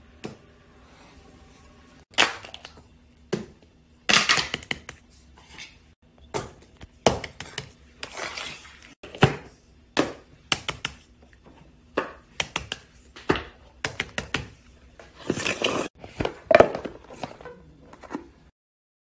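Plastic fidget toys being handled and played with: an irregular run of sharp clicks and short crackling, scraping bursts, cutting off suddenly near the end.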